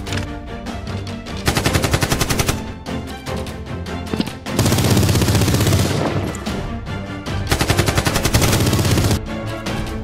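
Several long bursts of rapid automatic gunfire, a movie-style machine-gun sound effect laid over the Nerf blaster action, with background music underneath.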